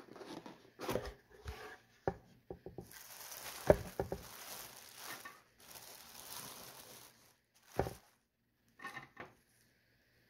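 Plastic cling film crinkling as hands pull it open, with a few sharp knocks and taps of handling mixed in, the loudest about four seconds in.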